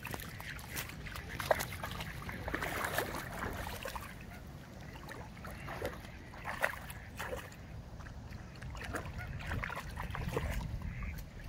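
A greyhound wading through shallow lake water, its legs splashing and sloshing in irregular little splashes.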